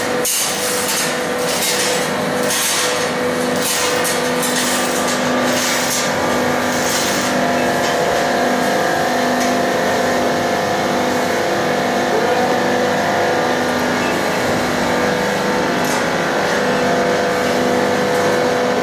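Steady mechanical drone with a repeating throb, under a hiss that swells several times in the first seven seconds or so.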